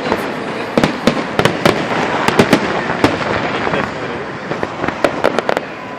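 Fireworks salute: many sharp bangs of bursting shells in quick, irregular succession over a continuous din of further bursts.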